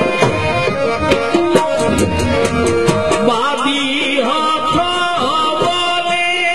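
Sindhi folk music with hand-drum percussion; about halfway through the drumming thins out under long, wavering held melodic notes.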